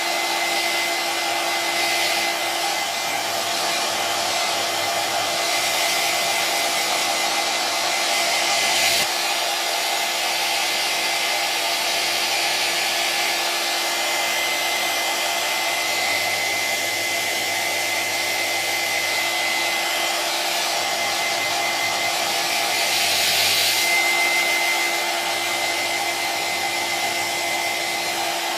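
Electric hair dryer running steadily: a continuous rush of blown air with a steady motor whine, slightly louder for a moment about 9 seconds in and again near 23 seconds.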